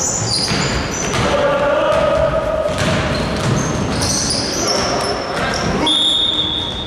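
Basketball play on a gym floor: balls bouncing, with short high squeaks typical of sneakers on the court. A steady high whistle blows for about a second near the end.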